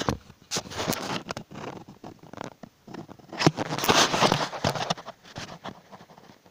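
Irregular rustling, scraping and clicking from a phone being handled and moved about, its microphone rubbing against hands or clothing. The loudest stretch of rubbing comes about three and a half to four and a half seconds in.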